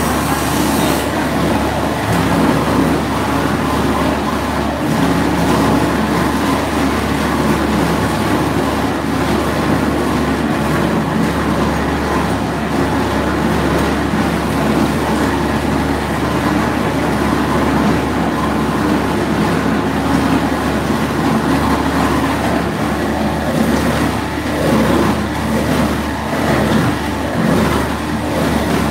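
Meatball bowl cutter running steadily, its belt-driven rotating bowl and blades chopping meat into paste.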